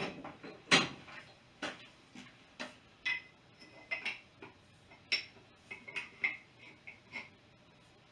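Light metal taps and clinks, about one a second, several of them ringing briefly: small metal pieces or tools being knocked and set down.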